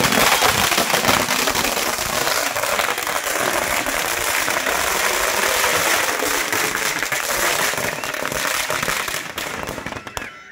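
Firecrackers going off in a dense, rapid, continuous crackle of many small bangs, thinning out and dying away near the end.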